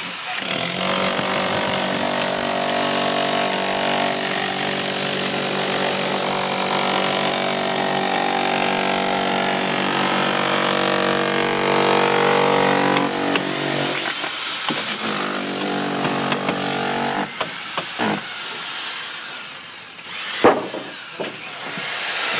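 Electric rotary hammer with a chisel bit breaking out brickwork: it runs steadily for about fourteen seconds, stops, then runs again for a few seconds. A sharp knock follows near the end.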